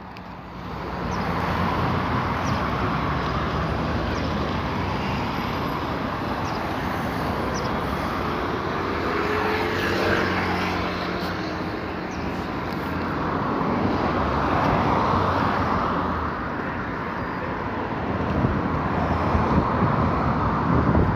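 Road traffic running past, with passing vehicles swelling louder about ten and again about fifteen seconds in.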